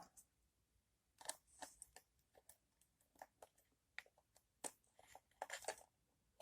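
Faint, scattered small clicks and taps of tiny plastic coupler parts and a small tool being handled while fitting an HO-scale Kadee coupler into its gearbox, with a short cluster of clicks near the end.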